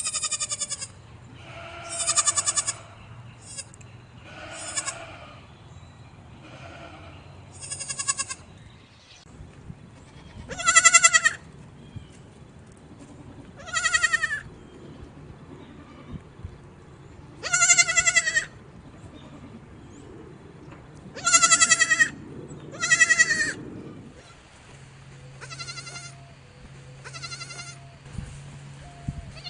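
Goats bleating, about a dozen separate calls of under a second each with a wavering, quavering pitch, spaced a few seconds apart.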